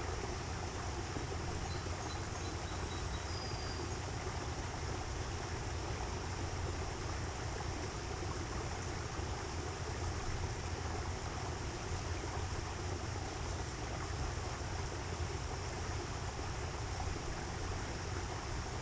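Steady rushing of running water from a small aviary stream, an even noise with a low rumble underneath that does not change.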